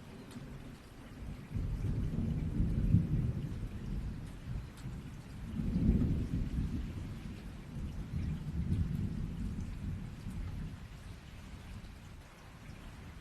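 Rolling thunder over steady rain. The thunder comes in several low, long rumbles, loudest about three seconds and six seconds in, fading out toward the end.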